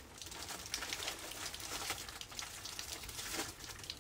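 Rain pattering during a thunderstorm, with many irregular drops ticking close by over a steady hiss.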